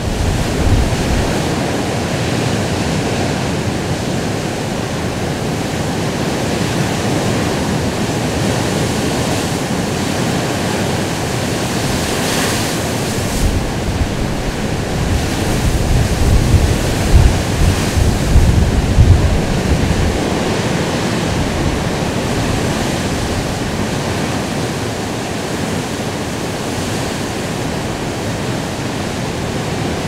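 Rough sea, waves surging and breaking, with wind blowing across the microphone. Heavier low buffeting about halfway through.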